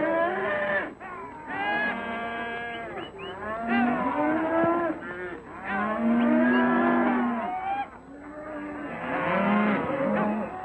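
A herd of cattle bellowing and mooing. Many overlapping calls come in several waves.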